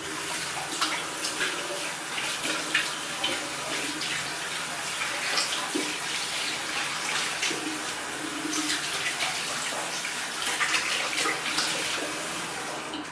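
Bathroom tap running into a sink, with irregular splashing as water is rinsed over the face after shaving. The water stops near the end.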